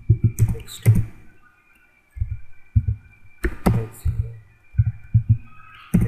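Typing on a computer keyboard: groups of dull keystroke thuds with a few sharper clicks, coming in short bursts with pauses between.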